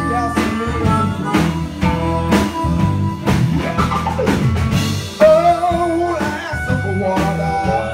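Live blues band playing an instrumental stretch between sung lines: a drum kit keeps a steady beat of about two strokes a second under guitar.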